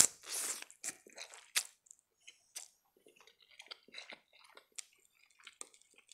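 Close-miked eating of spaghetti: a loud slurp of noodles right at the start, then chewing with small wet smacks and mouth clicks.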